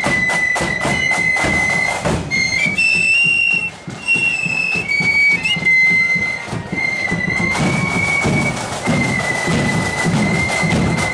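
Marching flute band playing a tune on massed flutes, with drum beats under it that thin out for a few seconds around the middle.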